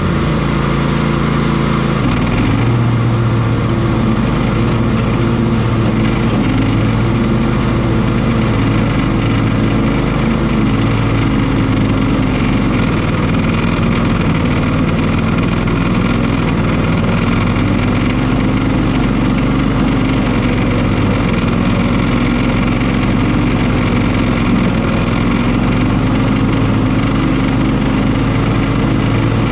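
Cub Cadet XT1 ST54 riding lawn mower running steadily under load while mowing tall, thick grass and weeds. Its engine note wavers slightly in pitch now and then.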